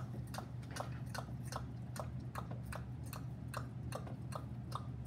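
Rapid, evenly spaced clicking, about two and a half clicks a second, over a steady low hum.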